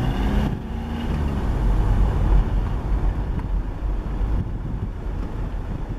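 A car driving, its engine and tyre noise making a steady low rumble heard from inside the vehicle.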